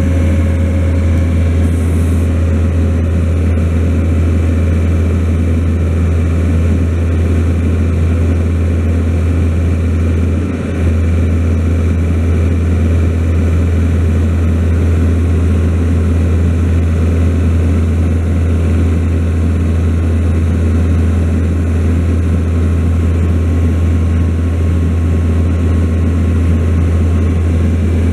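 Skid-steer loader's engine running steadily with a strong low drone, dipping briefly about ten and a half seconds in.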